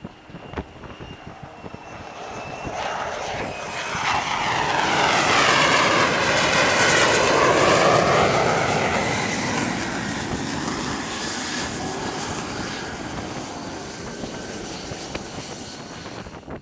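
Jet engine of an F-35 fighter, a single Pratt & Whitney F135, coming in on approach and passing close: the jet noise swells over a few seconds to a loud peak with a sweeping change in pitch as it goes by, then slowly fades.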